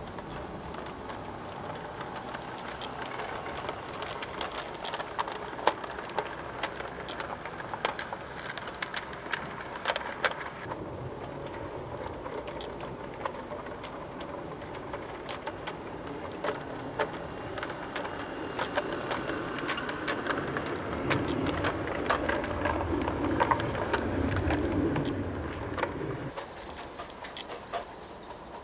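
Garden-railway locomotive and its wagons running along the track, with a steady running noise and many sharp clicks and rattles from the wheels and wagons. The train grows louder as it nears, from about 20 s until about 26 s in.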